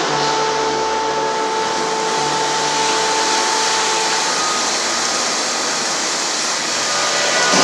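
Steady rushing noise, with a faint high held tone through the first four seconds, growing louder near the end.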